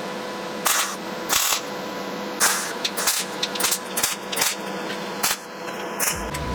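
A series of sharp, irregular clicks and knocks over a steady low hum.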